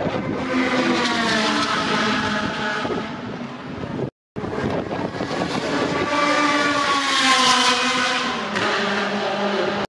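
Supercar engines running hard past the track, their pitch gliding as they go; the sound cuts out briefly about four seconds in. Then a Ferrari F355's V8 comes by close, loudest near the end, its note dropping as it passes.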